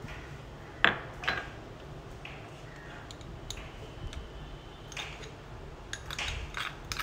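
Light clinks and taps of a steel spoon and a glass bowl against a plastic tub of batter as grated coconut and jaggery syrup are tipped in. There is one sharp clink about a second in, and a quick run of clicks near the end.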